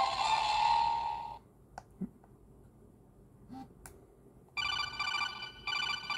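Jumper T-Pro radio transmitter powering up: its built-in beeper plays the start-up tune, a run of bright electronic beeps beginning about four and a half seconds in. Before that, a louder sound stops about a second and a half in, followed by a few faint clicks.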